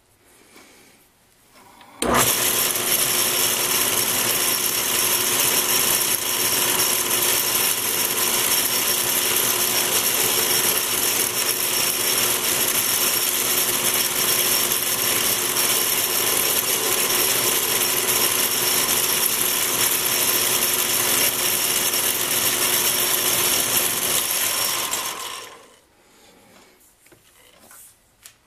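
Atlas 618 metal-turning lathe switched on about two seconds in, running steadily with a constant whine while facing off the end of a small collet-held workpiece, then switched off and winding down a few seconds before the end.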